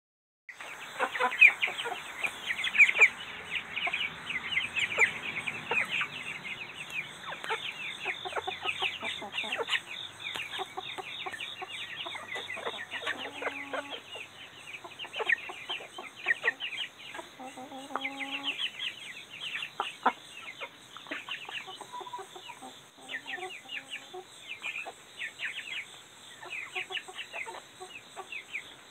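Silkie chickens clucking and chattering close by: a steady run of many short, high calls in quick succession, with a couple of lower, longer calls about halfway through.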